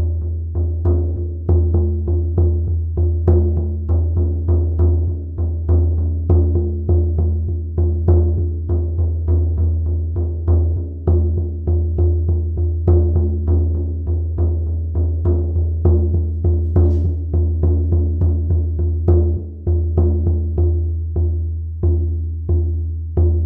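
A 20-inch oval goatskin shaman frame drum struck steadily with a soft sound-healing beater, about two beats a second. Each beat gives a deep boom that rings on into the next.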